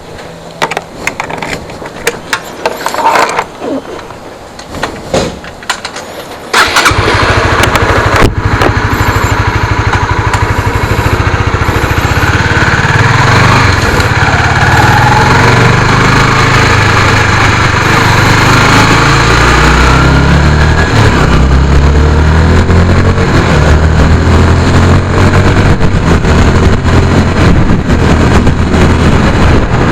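Motorcycle engine starting about a quarter of the way in, then running very loud close to the microphone, its pitch shifting up and down in steps. Before it starts there are scattered knocks and handling clicks.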